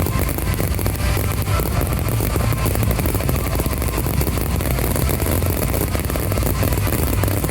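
Dense aerial fireworks barrage: overlapping booms merge into a continuous rumble, with crackle on top and no break.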